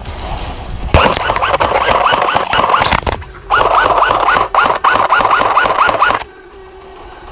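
Airsoft electric rifle firing rapid semi-automatic shots, about four a second, each shot with a brief rising whine of the gun's motor. There are two strings of shots with a short break just after the third second.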